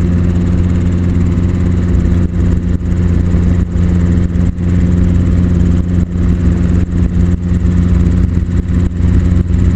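Helicopter cabin noise in flight: the engine and rotor make a loud, steady drone with a constant low hum.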